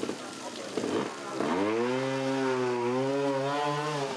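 Trials motorcycle engine revving hard under load on a steep climb. Its pitch sweeps up about a second and a half in, holds with small rises and dips for about two and a half seconds, then cuts off just before the end.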